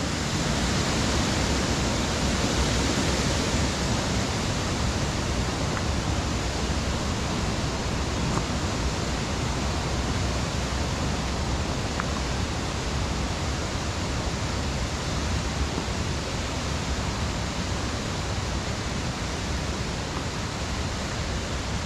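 Waterfall's falling water rushing, a steady even roar of noise with no let-up.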